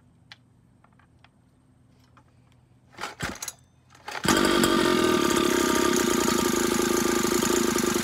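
A 49cc two-stroke mini dirt bike engine is pull-started: a short rasp of the recoil starter about three seconds in, then the engine catches about a second later and runs at a steady speed for about four seconds before cutting off suddenly.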